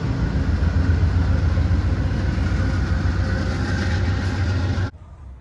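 Amtrak passenger train's diesel locomotive running with a steady, heavy low rumble and rail noise; it cuts off abruptly near the end.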